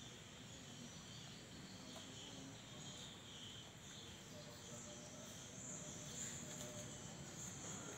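Faint, steady chirring of insects, a continuous high-pitched background drone.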